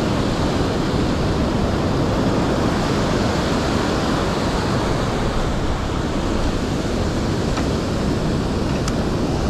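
Ocean surf breaking and washing up a sandy beach: a steady rush of waves, mixed with wind on the microphone.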